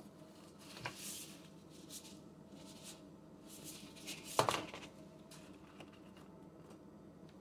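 Stiff, dry rice paper spring-roll wrappers handled as a stack: dry papery rustling and scraping in short spells, a light tap about a second in, and a sharp clack about four and a half seconds in, the loudest sound.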